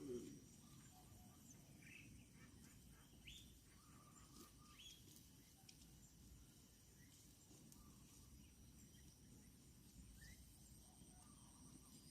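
Near silence: faint outdoor ambience with a steady high insect drone and a few short, scattered bird chirps.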